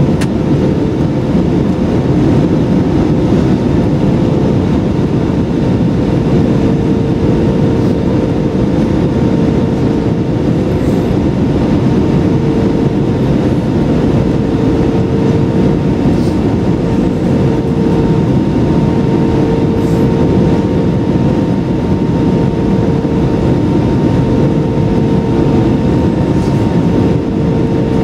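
Airbus A320-200 cabin noise in flight: a loud, steady roar of engines and airflow, with an engine tone that swells and fades every couple of seconds.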